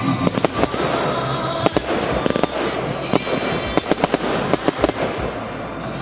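Fireworks going off in a rapid, irregular string of sharp bangs and crackles, several a second, with music playing underneath.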